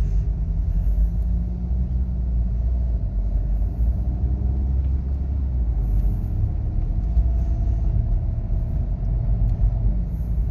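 Car driving, heard from inside the cabin: a steady low rumble of engine and road noise as it pulls away from a light and cruises, with a faint hum rising slightly in pitch past the middle.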